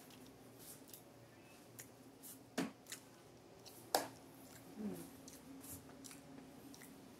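Quiet room tone with a faint low steady hum, broken by scattered small clicks and two sharp knocks, about two and a half and four seconds in, with a brief squeak just before five seconds.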